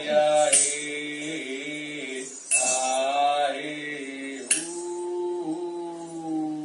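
Slow sung Buddhist chant (charya giti) with long held notes over a low steady drone, and a small metal cymbal struck three times about two seconds apart, each strike ringing on.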